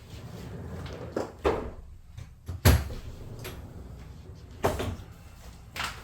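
A few sudden knocks and clunks, like things being handled or set down, over low rumbling; the loudest comes about two and a half seconds in.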